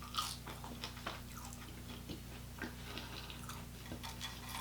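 Close-miked chewing and biting of food, with scattered short wet mouth clicks and crackles and a sharper bite shortly after the start.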